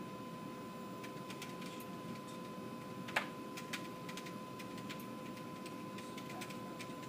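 A steady electronic hum from the computer and pulmonary function testing equipment, with scattered light clicks of computer keys and handling, one sharper click a little past three seconds in.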